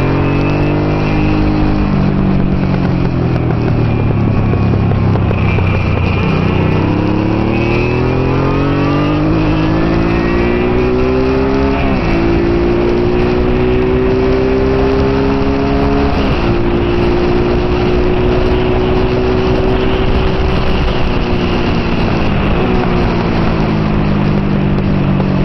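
Honda Hawk GT V-twin motorcycle engine at race speed under a heavy rush of wind. The revs fall at first as it slows through a corner, climb with two upshifts about twelve and sixteen seconds in, hold steady, then fall again near the end as it slows.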